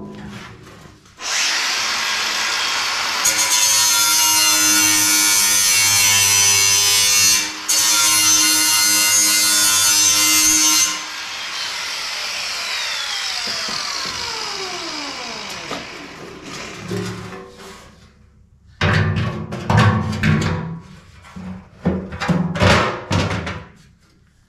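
Angle grinder running under load as it grinds down a built-up weld bead on steel, then spinning down with a falling whine once the trigger is released, about eleven seconds in. Irregular knocks and clunks of sheet metal follow as the new floor pan half is set in place for a test fit.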